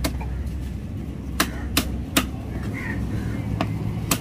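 A large knife chopping tuna flesh into chunks on a wooden log chopping block: a handful of sharp chops at uneven spacing, three of them in quick succession in the middle. A steady low rumble runs underneath.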